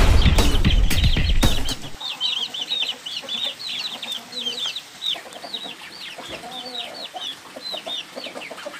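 Chickens peeping in a rapid string of short, high, falling calls, with a few lower clucks mixed in. These follow a loud noisy burst with a few sharp clicks that ends about two seconds in.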